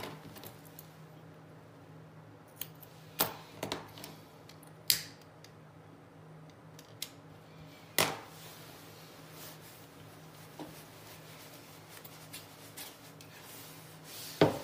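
Small spring thread snips and other small tools being handled on a tabletop: a few scattered sharp snips and clicks, a second or several apart, as the string is trimmed and the tools are set down.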